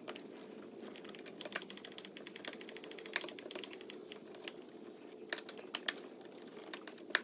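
Ratchet clicking in quick, even runs as the bolts of a new auxiliary belt tensioner are tightened, with a few sharper single clicks of the tool against metal.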